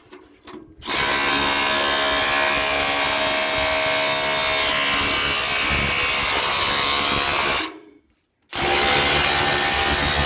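DeWalt hammer drill running hard against a welded steel piece to break it loose, a long run of about seven seconds, a brief stop, then a second run near the end.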